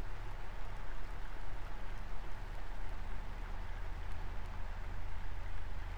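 Steady hiss with a low hum underneath, with no distinct events.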